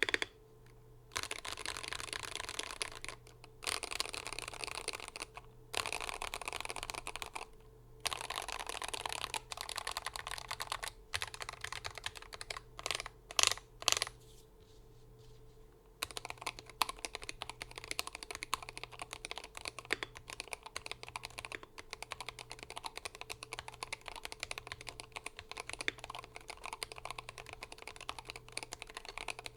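Typing on a Glorious GMMK 3 Pro HE 75% keyboard with hand-lubed Fox Red Hall-effect switches, a tape mod and full foam. Fast runs of keystrokes come with short pauses between them. A few single, louder strokes come about 13 seconds in, and steady fast typing follows from about 16 seconds.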